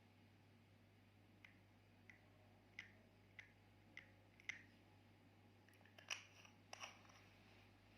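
Slime being worked by hand, giving faint sharp clicks about every half second, then two louder crackling squelches near the end.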